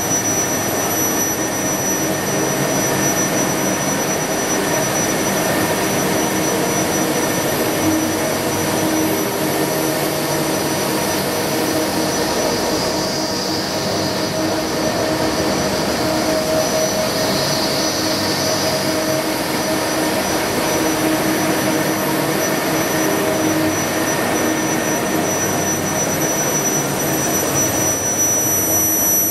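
Edale FL-3 narrow-web flexo label press running in production: a steady, dense mechanical whir of the press and the air blowers of its hot-air dryers and UV curing units, with a thin high steady tone over it.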